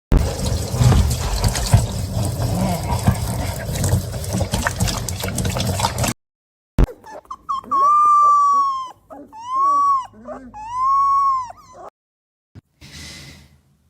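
About six seconds of loud, dense noise, then after a short break a dog whining: three long, drawn-out calls, each rising and then falling in pitch.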